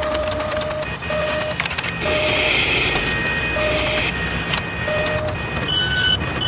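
Machinery sound effects: steady mechanical whirring and clatter, with a low beep that sounds on and off. From about six seconds in, higher beeps repeat about twice a second.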